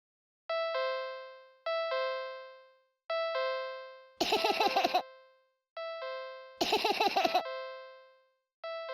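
Two-note doorbell-style 'ding-dong' chime, a higher note falling to a lower one, struck five times with each note ringing out and fading. Two short bursts of faster, harsher pulsing ringing come between the chimes, about four and six and a half seconds in, and these are the loudest sounds.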